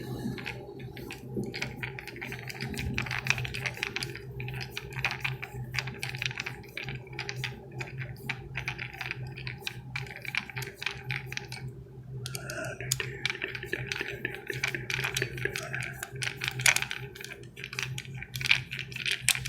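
Irregular small metallic clicks and scrapes from tightening down the screws of a Romex cable clamp by hand, over a steady low hum.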